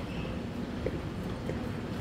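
Subway station ambience: a steady low rumble and hum from trains and station machinery, with a couple of light footsteps or clicks from people walking down the stairs.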